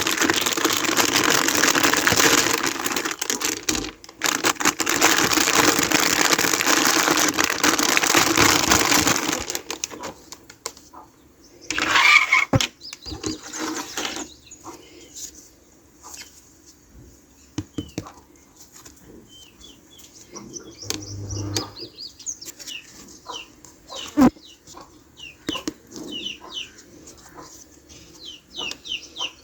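Plastic packaging crinkling loudly for about the first nine seconds, then scattered light clicks and taps of small plastic toy pieces being handled. Many short high chirps run through the last several seconds.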